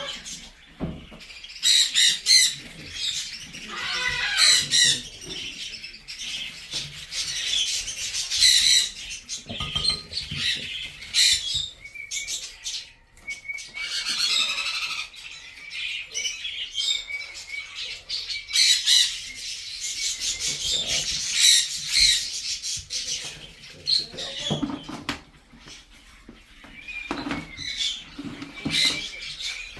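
Parrots calling: repeated harsh squawks and chirps in bursts, one after another, with short gaps between them.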